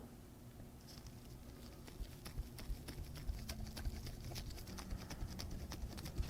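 Faint, rapid, irregular light metal clicks from small tools working on a pocket-watch movement, starting about a second in.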